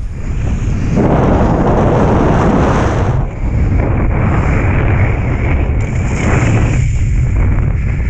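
Strong wind buffeting the action camera's microphone while riding a kitefoil in high wind: a loud, steady rumble that swells about a second in.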